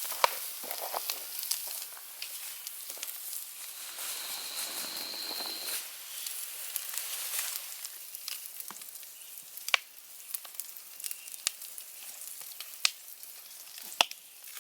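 Maple hardwood campfire crackling and hissing, with sharp pops at irregular moments. A thin high whistle runs for about two seconds a few seconds in.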